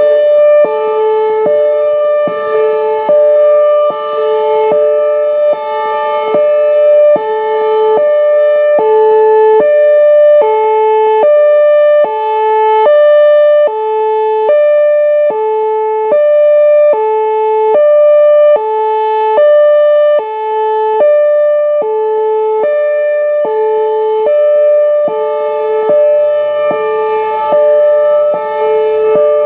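Whelen Vortex R4 electronic outdoor warning siren sounding its Hi-Lo tone, loud and steady. It switches between a low and a high pitch about twice a second.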